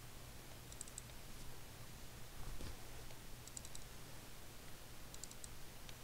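Faint computer mouse clicks in three short quick groups, like double-clicks, over a steady low hum.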